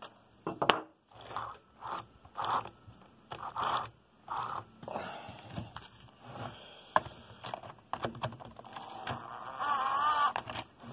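Hands working on a STIHL MS 194 T chainsaw's plastic housing and bar nut with hand tools: an irregular run of short scrapes and rubbing, broken by a few sharp clicks.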